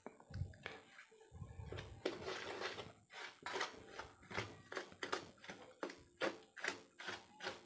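A steel spoon stirring a dry mix of rice flour, rava and maida in a stainless steel bowl, scraping in regular strokes about three a second from about the middle on.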